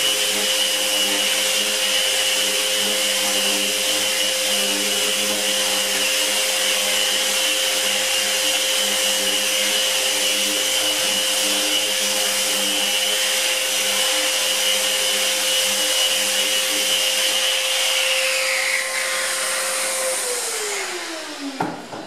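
Festool Rotex RO 150 random-orbit sander with a 120-grit disc running steadily against rough wall plaster, with no dust extractor running, giving a constant motor whine over the sanding noise. Near the end it is switched off, and the whine falls in pitch as the motor spins down.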